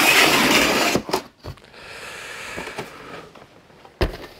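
Large cardboard toy box being handled and moved: a loud cardboard scrape for about the first second, a few light knocks, a softer sliding rustle, then a thump about four seconds in.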